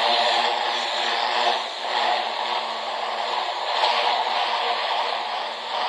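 Greenworks 80V cordless pressure washer running steadily: a steady hum from the electric motor and pump under the hiss of high-pressure water spraying against vinyl siding. The rush of the spray dips briefly twice, about two seconds in and near the end.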